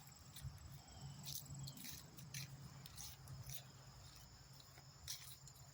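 Faint outdoor insect trilling: a steady high-pitched drone of insects, with scattered light clicks and rustles.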